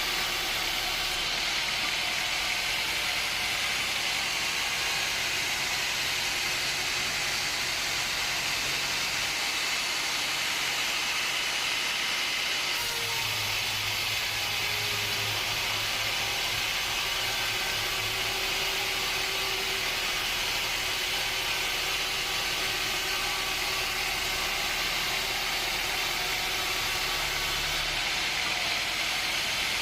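Sawmill machinery running steadily: a constant hissing noise over a low motor hum that changes pitch about halfway through and again near the end.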